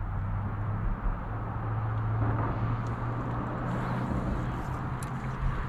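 Steady low hum of a bass boat's electric trolling motor running while the boat holds position, with a sharp click near the end.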